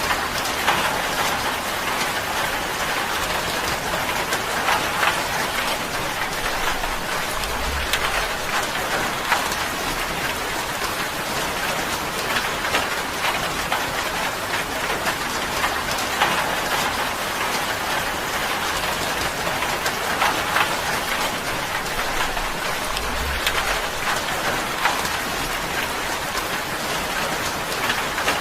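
Steady heavy rain drumming on a tin roof: a dense patter of drops with sharper individual ticks scattered through it.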